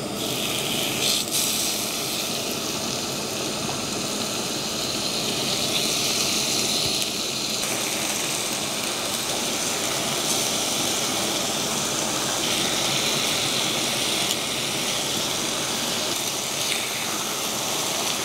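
Thinly sliced beef brisket sizzling steadily on a hot stone grill pan as the raw slices are laid on.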